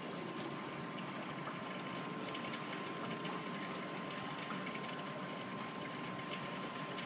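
Aquarium bubbling and water flow from an air stone and an internal filter, running steadily, with a thin steady whine.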